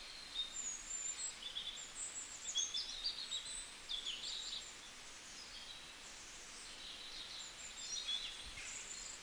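Swan cygnets peeping: quick runs of short, high chirps through the first half, a lull, then more near the end, over a steady hiss.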